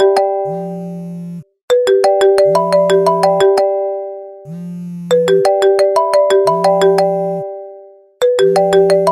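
iPhone ringing on ring and vibrate: a short melodic ringtone phrase repeats about every three and a half seconds, while the vibration motor buzzes in short pulses about every two seconds.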